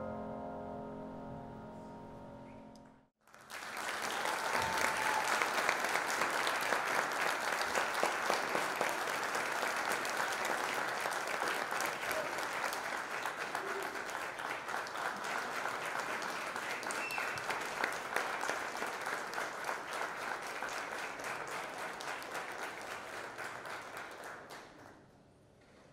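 The last chord on piano and vibraphone rings and dies away over the first three seconds, then breaks off. An audience then applauds with steady clapping for about twenty seconds, fading out near the end.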